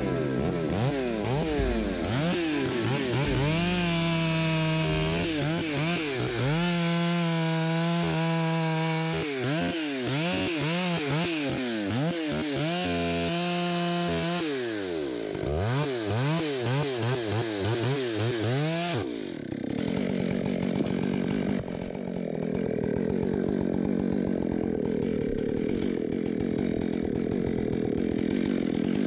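Stihl MS661 91 cc two-stroke chainsaw cutting into a white fir trunk. The engine revs up and down over and over, with stretches held steady at full throttle. About two-thirds of the way through it changes to a rougher, steady sound without a clear pitch.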